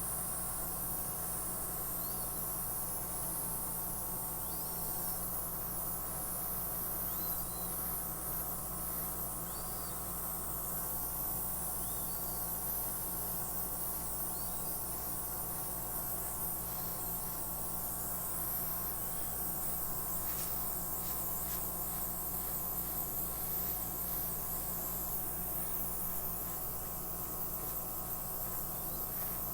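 Small cordless airbrush compressor running, its motor humming steadily under a constant hiss of air as it blows out wet acrylic paint.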